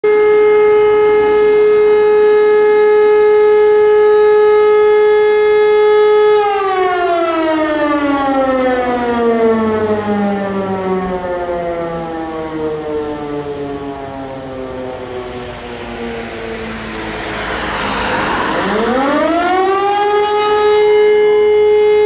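Rooftop motor siren sounding the German fire-alarm (Feueralarm) signal: a steady wail holds, then about six seconds in it winds down, falling in pitch and fading as the rotor coasts. Near the end it spins back up to full pitch for the next tone of the signal, with a brief burst of noise just as it restarts.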